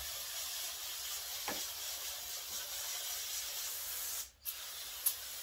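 Steady hiss of something being sprayed onto a freshly sanded car body panel, used in place of lacquer. The hiss stops briefly about four seconds in, then starts again.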